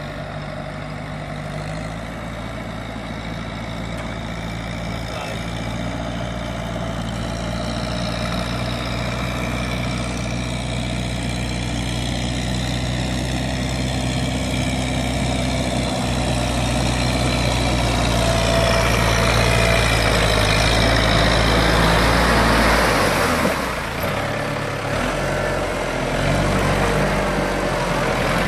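Kubota M7040 tractor's diesel engine running steadily while it works a flooded paddy, growing louder as it comes nearer; its note breaks up and dips briefly near the end before steadying.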